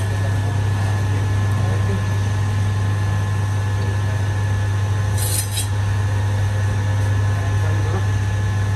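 Electric chicken-cutting machine with a circular steel blade running with a steady low motor hum. A little after five seconds in there is a short high, noisy cut as the blade goes through the chicken.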